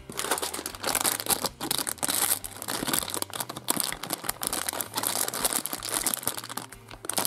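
Printed plastic blind-bag wrapper crinkling as hands open it and dig inside, a dense run of sharp crackles that starts abruptly.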